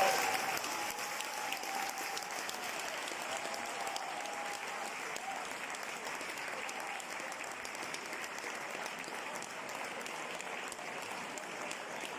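Audience applause: many hands clapping in a steady, even patter.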